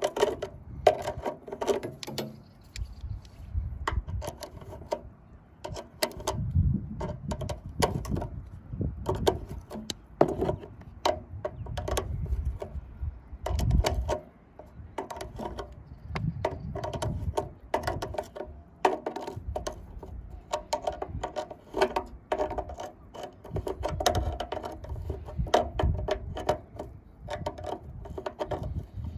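Steel pliers gripping, clicking and scraping on the metal terminal screws and bolts of a hot water system's heating element: a long run of irregular sharp clicks over a low rumble.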